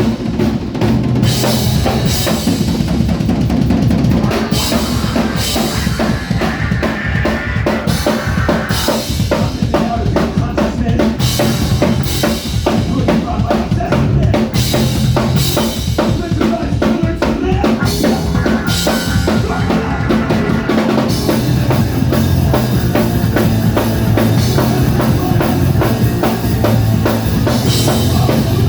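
A rock band playing live and loud, with the drum kit (kick, snare and cymbals) to the fore in a continuous, busy passage.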